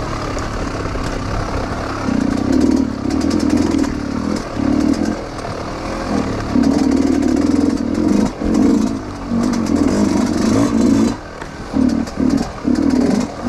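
Dirt bike engine revving in repeated throttle bursts, each lasting half a second to a second and a half with short drops between, as it is ridden over rough trail, with scattered clattering.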